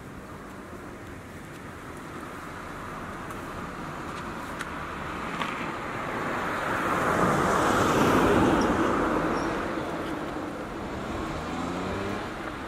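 Cars passing on the adjacent road: engine and tyre noise swells as the vehicles approach, is loudest a little past the middle, then fades as they go by.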